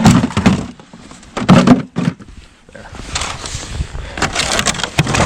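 Junk being handled: two loud knocks and clunks in the first two seconds, then a stretch of rattling and rustling with small knocks.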